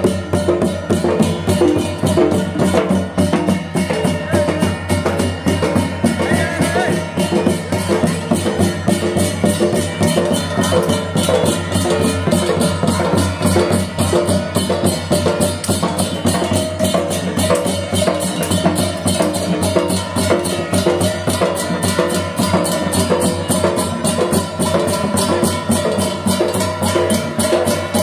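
Danda Nacha folk drumming: large barrel drums beaten fast with sticks, together with small hand cymbals, in a dense, rapid, unbroken rhythm over a steady held tone.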